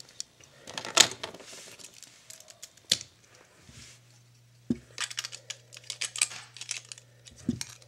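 Plastic Lego bricks clicking and clattering as pieces are handled: a few separate clicks, then a quick run of clicks in the second half. A low steady hum comes in about halfway through.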